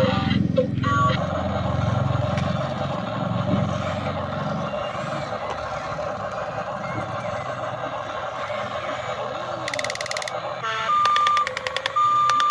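Toy remote-control excavator running, a steady electric whir, joined about eleven seconds in by a repeating electronic beep with fast clicking, like a toy reversing alarm.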